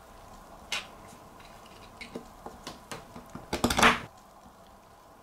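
Small steel handbrake parts, a ratchet adjuster and its friction spring clip, clicking and clinking together as they are handled and the clip is fitted onto the ratchet. One click comes about a second in, then a run of light clicks, and the loudest cluster comes near the four-second mark.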